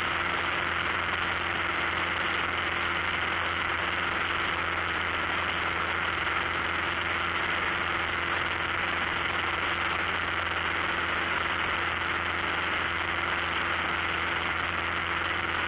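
Steady drone of a light aircraft's engine and spinning propeller at climb power, heard from inside the cockpit as the plane climbs away after takeoff, with rushing airflow noise over it.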